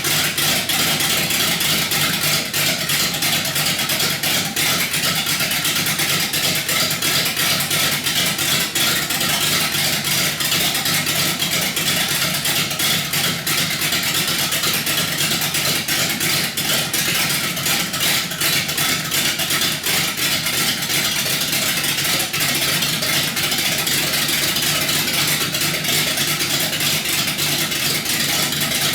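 A Chrysler 318 small-block V8 on an engine test stand, idling steadily through open exhaust manifolds with no mufflers. It has a deliberately rough idle, built with a big Comp Cams camshaft and high-compression domed pistons.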